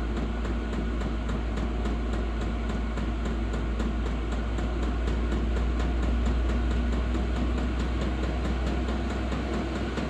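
VEVOR diesel air heater running at its highest setting, pretty noisy: a steady low drone of the blower fan and burner, with the fuel pump ticking rapidly, several times a second.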